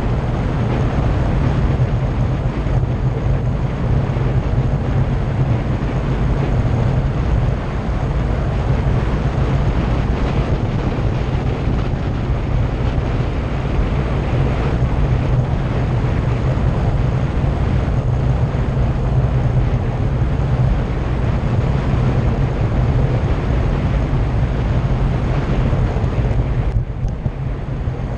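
Steady wind rushing and buffeting over the microphone of a camera on a bicycle coasting fast downhill, a continuous low rumble with no break.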